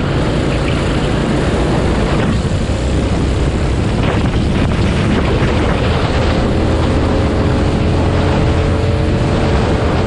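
Racing go-kart engine running hard on track, heard onboard with wind buffeting the microphone; the engine note shifts slightly in pitch from about six seconds in.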